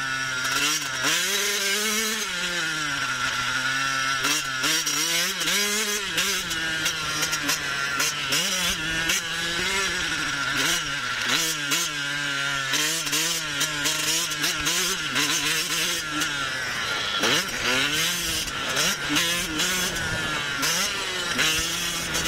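Husqvarna TC 85 motocross bike's 85cc two-stroke engine being ridden hard, its pitch rising and falling over and over as the rider works the throttle and shifts gears, with a few quick steep revs near the end.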